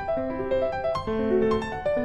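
Background piano music: a lively melody of separate notes following one another quickly.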